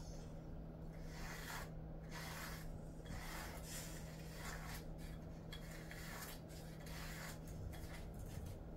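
A grooming brush stroking through a Jindo dog's coat: soft, scratchy brushing strokes about twice a second, over a faint steady hum.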